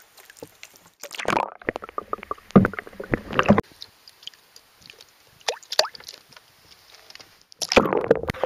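Water splashing and sloshing in a bucket as a bluegill is handled and lifted out, a run of splashes for about two seconds, then quieter with scattered drips. Near the end a louder rush of water as the camera's microphone goes under the lake surface.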